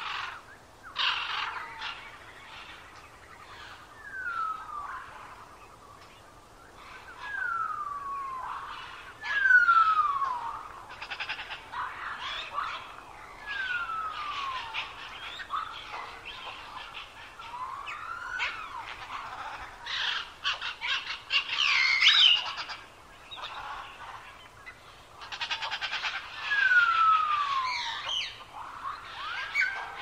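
Several songbirds singing: one repeats clear whistles that slide down in pitch, each under a second long, while others add quick chirps and trills.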